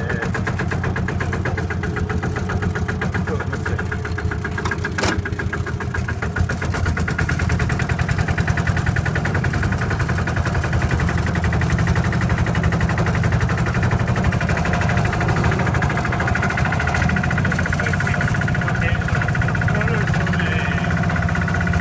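Diesel engine of a four-wheel-drive site dumper running steadily under way as the machine drives forward, with a single sharp clank about five seconds in.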